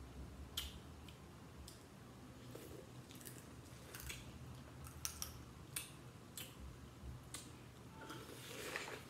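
Close-up eating sounds of biting and chewing sauce-coated corn on the cob: a run of short, wet clicks and smacks at uneven intervals, with a longer noisy stretch of chewing near the end.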